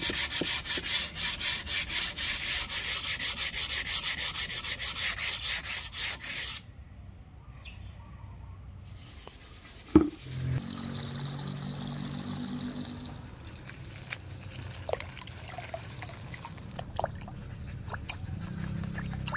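Sandpaper rubbing along a rosewood axe handle in quick, rhythmic hand strokes, stopping about six and a half seconds in. About ten seconds in, a plastic bucket is knocked down onto a wooden bench, then water runs into it and is stirred.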